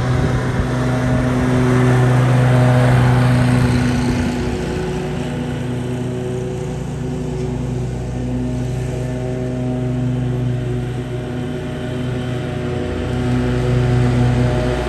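Zero-turn riding mower's engine running at a steady pitch while mowing grass. It is loudest a couple of seconds in, fades as the mower moves away across the lawn, and grows louder again near the end as it comes back.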